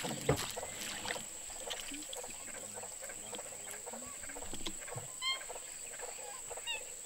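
Open-air boat ambience: a steady high thin whine under scattered small clicks and taps, with a sharp knock just after the start. A short bird call comes about five seconds in, and a brief second call comes near the end.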